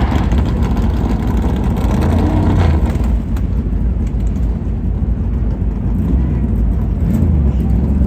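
Field of NASCAR Cup Series stock cars' V8 engines running just after being fired, a heavy low rumble, with engines revved about two seconds in and again near the end.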